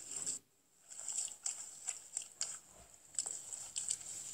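Hands squishing and pressing pink slime mixed with foam beads: scattered soft crackles and clicks. The sound drops out briefly about half a second in.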